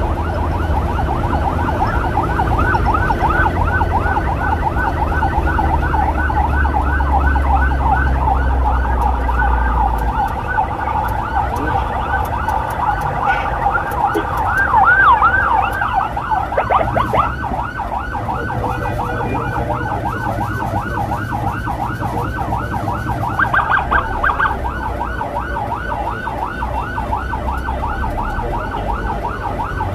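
Emergency vehicle siren in a fast yelp, rapid up-and-down sweeps about four to five a second, with a few slower, wider sweeps around the middle. The low hum of a motorcycle engine runs underneath.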